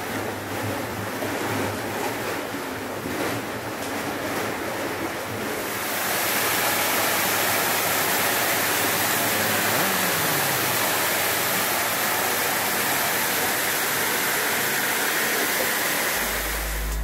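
Pool water churning under whirlpool jets. About six seconds in this gives way to a louder, steady rush as a stainless-steel cascade spout pours a sheet of water into the pool.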